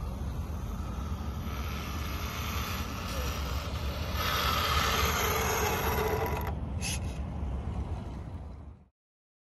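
Electric RC truck running on a 2S LiPo pack, its motor and drivetrain whirring over tyre noise, louder for a couple of seconds midway, under a heavy low rumble. The sound cuts off suddenly near the end.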